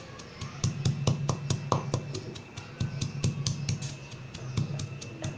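Pestle pounding dried fish, green chillies and garlic in a clay mortar, a dull knock about four times a second.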